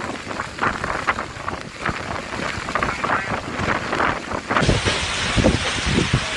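Storm wind buffeting the microphone, with rain noise. About four and a half seconds in the sound changes abruptly to a fuller, gustier rush, with deep thumps of wind on the microphone.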